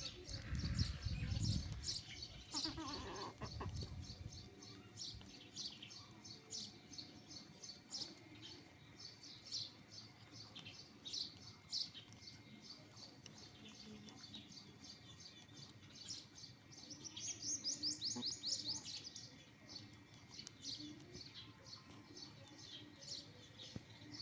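Birds chirping over and over in short, high calls, with a fast run of chirps about seventeen seconds in. A low rumble sounds during the first few seconds.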